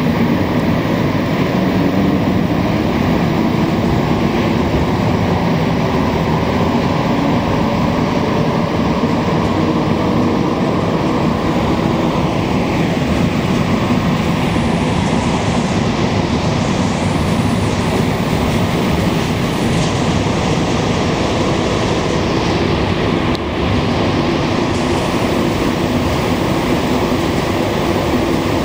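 Montreal Metro Azur rubber-tyred train running at speed through the tunnel, heard from inside the car as a steady, loud rumble and rush of the running gear. About halfway through, faint high whines slide in pitch.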